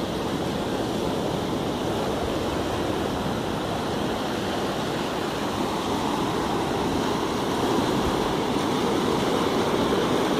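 Sea surf breaking and churning around shoreline rocks: a steady rush of foaming water that grows a little louder about eight seconds in.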